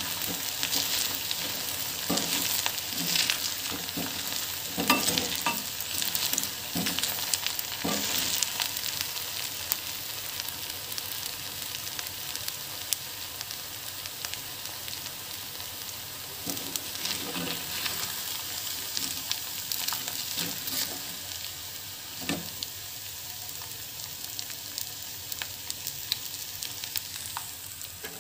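Oil sizzling steadily as slices of raw banana (vazhaikkai) and potato deep-fry in a pan, with the scrape and knock of a slotted ladle stirring them every so often, most in the first several seconds. The sizzle gets a little quieter toward the end.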